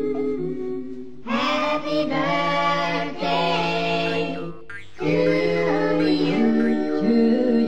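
A cappella vocal music: several voices singing sustained notes in harmony, with no instruments heard, growing louder about a second in and dipping briefly near the middle.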